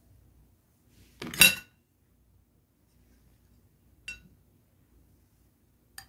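Metal cutlery clinking against a plate: a loud, ringing clatter about a second in, then two lighter clinks later on.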